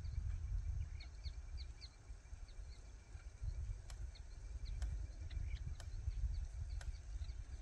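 Wind rumbling on the microphone, with small birds chirping in the first half. From about four seconds in, a hand jab planter (matraca) clacks sharply about once a second as it is jabbed into the soil.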